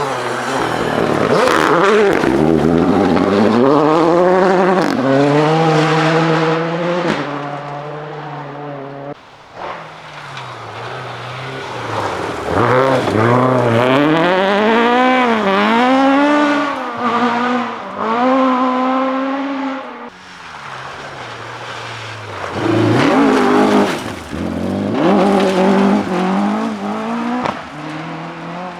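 Rally car engines revving hard, the pitch climbing and then dropping again and again as the cars shift gear. The sound comes in three separate passes, each cut off abruptly, about nine and twenty seconds in.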